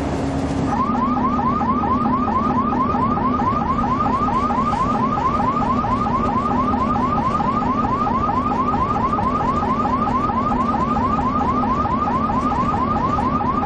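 Ambulance siren in a fast yelp: a rising whoop repeated several times a second, over a steady low drone.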